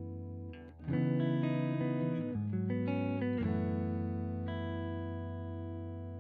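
Background music of long held chords that change every second or so, with a short dip just before the first second; it cuts off abruptly at the end.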